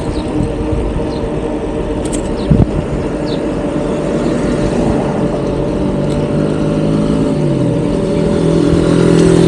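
Road noise of riding a bicycle: a steady rush with several steady hum tones that step down in pitch about seven seconds in and grow louder near the end, and a single knock a little over two seconds in.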